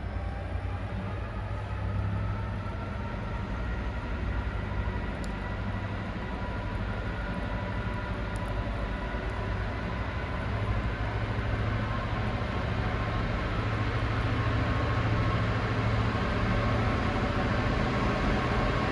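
Class 66 diesel locomotive's two-stroke V12 engine running as it approaches, a deep hum with a steady higher drone, growing gradually louder.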